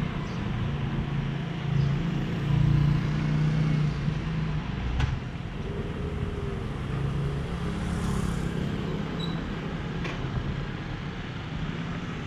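Street traffic: motor engines running at low speed, with a low hum that rises and falls and is loudest about two to four seconds in.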